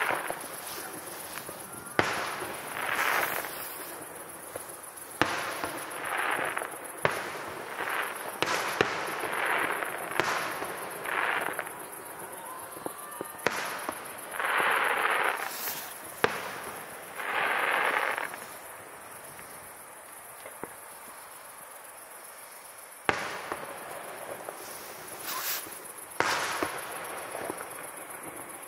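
Distant fireworks display: shells bursting with sharp bangs at irregular intervals, several followed by about a second of crackling rush. There is a lull of a few seconds past the middle.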